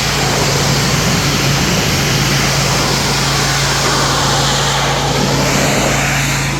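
Pressure washer's engine running steadily with a constant hum, under the even hiss of the water jet from a 40-degree tip spraying a wooden board fence to strip old paint.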